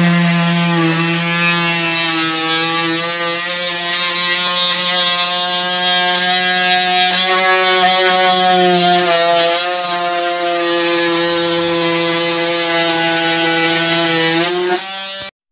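Oscillating multi-tool running as it cuts along the joint between wall and ceiling: a loud, steady buzz whose pitch wavers slightly under load, stopping abruptly near the end.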